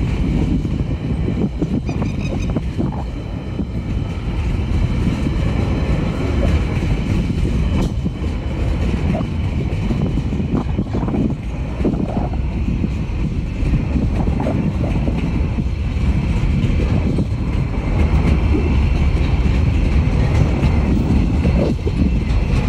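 Container wagons of a TasRail freight train rolling past: a steady, loud rumble of steel wheels on the rails, broken by irregular knocks and clatter.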